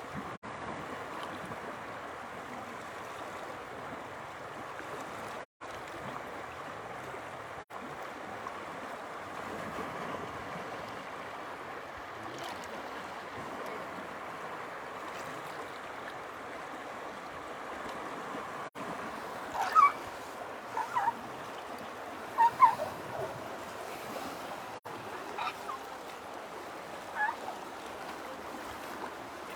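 Steady rushing outdoor noise like running water. Over it, about two-thirds of the way through, come half a dozen short, sharp animal calls in a cluster, two of them much louder than the rest.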